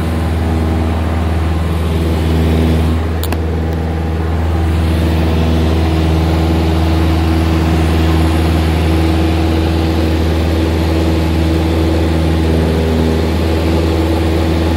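Single-engine propeller light aircraft at takeoff power, heard from inside the cabin: a steady engine and propeller drone during lift-off and climb-out, a little louder from about five seconds in. A brief click about three seconds in.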